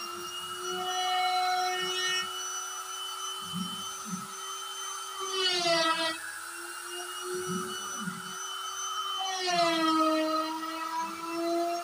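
DIY CNC router's spindle whining steadily as it carves an MDF panel, with a low rumble of cutting underneath. Its pitch dips briefly twice, about five seconds in and again near ten seconds.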